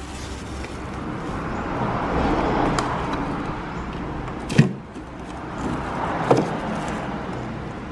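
Plastic bags of frozen meat rustling and crinkling as hands shift them around inside a freezer compartment, with three short knocks as the frozen packs are moved.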